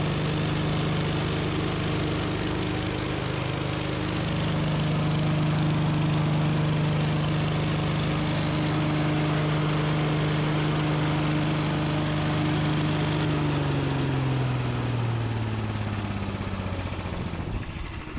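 Woodchipper's small gasoline engine running steadily on its refitted carburetor, then slowing down near the end, its pitch falling over a few seconds as it winds down.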